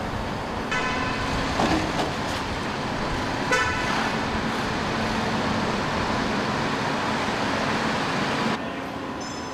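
Steady, dense mechanical din of a busy machine shop, with two short horn-like toots, about one second and three and a half seconds in. The din drops to a quieter level near the end.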